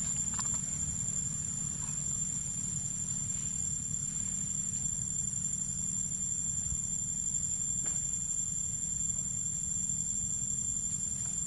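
Steady, high-pitched insect chorus held on one pitch throughout, over a low steady rumble, with a couple of faint clicks.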